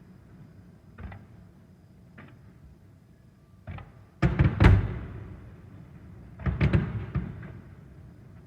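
Aerial firework shells bursting in a finale: a few separate booms, then two quick volleys of several bangs each, about four and six and a half seconds in, each dying away in a rolling echo.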